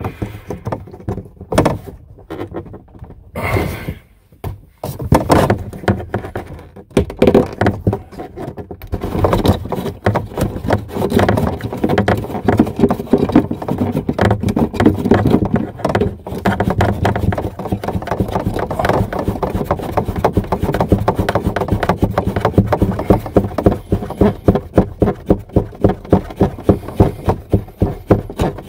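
A black plastic faucet retaining nut being unscrewed by hand from the faucet's threaded tailpiece under the sink, making rapid clicking and knocking of plastic on plastic. It becomes a fairly regular knocking of about two a second near the end.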